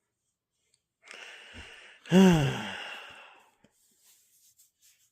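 A long sigh: a breathy intake, then a loud voiced exhale that falls in pitch and trails off in breath.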